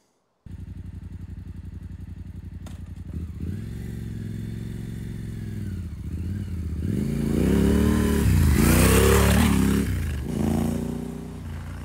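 Yamaha Ténéré 700's parallel-twin engine as the bike rides along a dirt track, first at low revs, then revving up and down through the gears. It grows loudest with a rush of hiss as it passes close, then fades as it pulls away.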